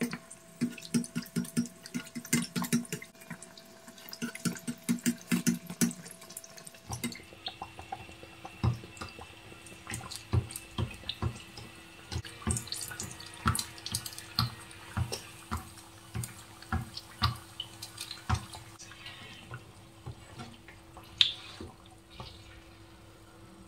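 A keema kachori frying in hot oil in a pan: the oil sizzles with a fast, irregular run of crackles and pops, one louder pop near the end.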